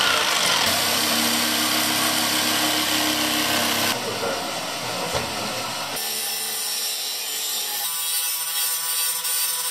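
Power tools cutting: an electric jigsaw sawing through plywood, then near the end an angle grinder cutting a steel disc.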